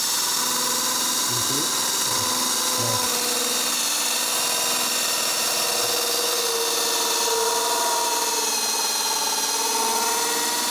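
Drill spinning an internal pipe cutter inside an old PVC drain pipe, cutting through the pipe wall below a slip-joint fitting. The motor holds a steady whine.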